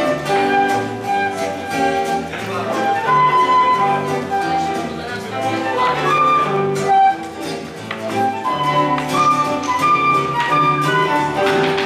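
Small live acoustic band playing an instrumental tune: a held, winding melody line over strummed guitar and a plucked double bass.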